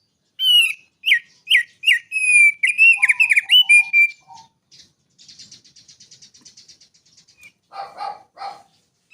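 Songbird singing: a quick run of sharp, down-slurred whistled notes, then a fine buzzy trill, then two short harsh calls near the end.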